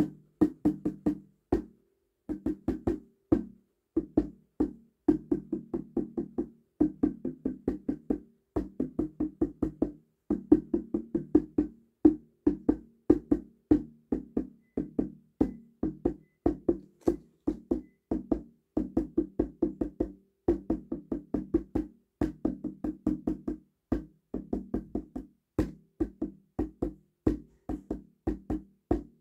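Hand drum with a shell grown from mushroom mycelium and a laced skin head, tapped quickly with the fingertips: a steady run of several short, pitched strikes a second, with a brief pause about two seconds in.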